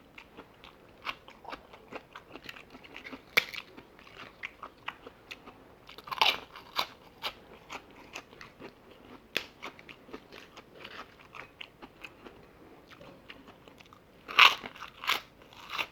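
Close-miked mouth sounds of someone eating fried chicken: steady chewing with crisp crunching clicks, and a few louder bites about 3, 6 and 14 to 15 seconds in.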